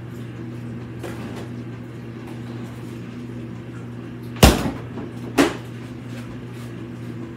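A plastic Tupperware container falling out of a refrigerator and hitting the floor: two sharp knocks about a second apart, the first the louder, over a steady low hum.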